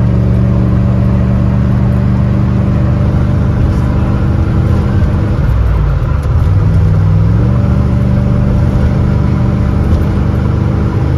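A vehicle's engine running as it drives, heard from inside the cab with road noise. Its note dips about halfway through and climbs back up about two seconds later.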